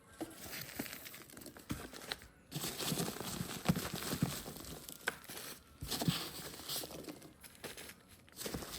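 Packaging being handled and unwrapped: irregular crinkling and rustling with small clicks and knocks, pausing briefly twice.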